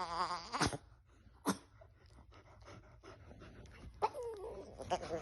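Chihuahua making a warbling, wavering growl that breaks off within the first second, followed by two sharp clicks, then faint breathing, and a new wavering growl starting near the end.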